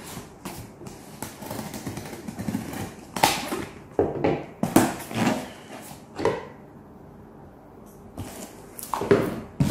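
Scissors cutting through packing tape on a cardboard box, then the taped flaps being torn and pulled open, in a series of short rasping, ripping strokes with a quieter pause about seven seconds in.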